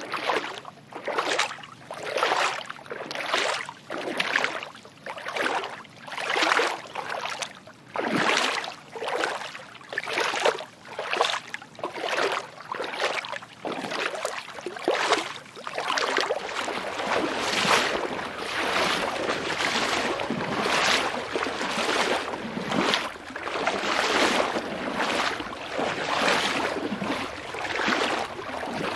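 Footsteps sound effect: a steady run of scuffing steps, each a short rush of noise rather than a sharp click, about one a second. In the second half the steps come closer together and run into a near-continuous shuffle.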